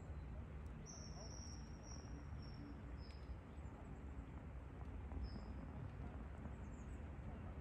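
Outdoor ambience by a pond: a steady low rumble with a thin, high-pitched call on top, a slightly falling note broken into short pieces about a second in, and one short note again about five seconds in.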